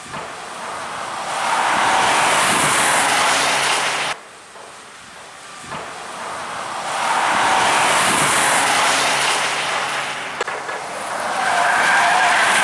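Alfa Romeo cars driving past at speed, one after another, each engine and its tyre noise swelling as the car nears. The first pass cuts off abruptly about four seconds in, and the last carries a rising engine note.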